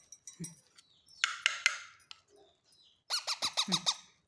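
Pet green parrot calling: a short harsh squawk about a second in, then a fast chattering run of short, falling calls near the end.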